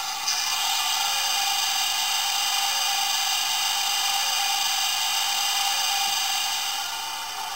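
Recorded diesel locomotive engine sound from an ESU LokSound DCC sound decoder in a Hornby OO gauge Class 60 model, played through its small 23 mm speaker: a steady engine drone, thin and tinny with no bass. It eases slightly near the end.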